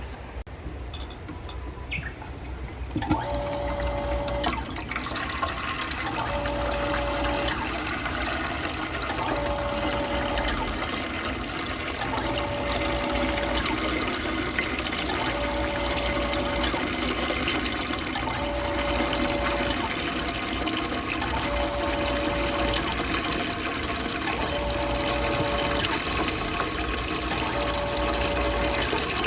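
Water pump running and moving water, starting suddenly about three seconds in, with a short tone that recurs about every three seconds over the steady rush of water.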